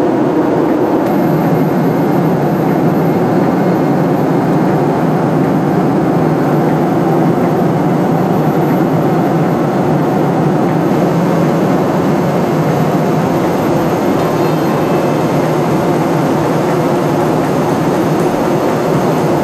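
Steady roar of jet aircraft in flight, a loud, even rush that does not change.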